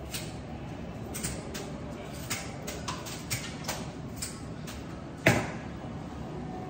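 Light clicks and rustles of pine sprigs being handled and pushed into a wicker basket, about two a second, then one sharp, louder knock a little after five seconds in.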